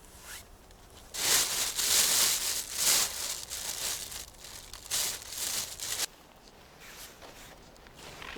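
Loud crinkling and tearing of dry, crinkly material being handled or torn by hand. It comes in several uneven bursts, starts about a second in and cuts off suddenly about six seconds in.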